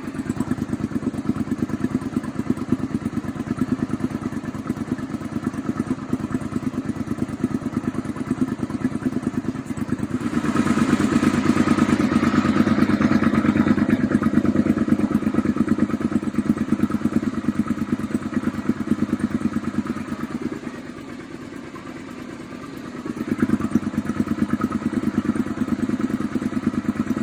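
Suzuki SV650's 645 cc V-twin engine running, steady at first, then brought up to higher revs about ten seconds in. It eases back, drops low around twenty seconds in, and picks up again a few seconds before the end.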